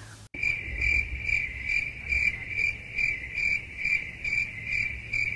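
Insect trilling, cricket-like: a steady high-pitched trill that pulses about two and a half times a second. It starts and stops abruptly.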